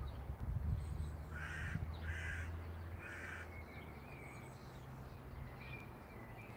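A crow cawing three times in quick succession, each harsh call about half a second long, over a low steady rumble, with faint higher chirps from smaller birds after the caws.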